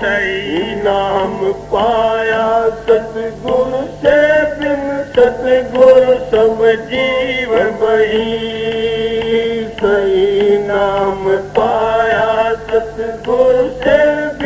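A man singing a devotional shabad in a slow, chant-like melody, with long held and gliding notes in short phrases.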